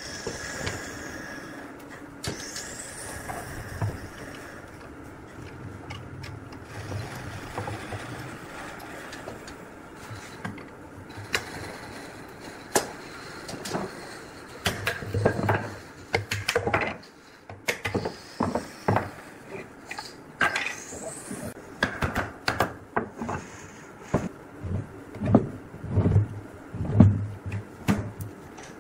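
Irregular knocks and clatter, sparse at first and coming thick and fast over the second half.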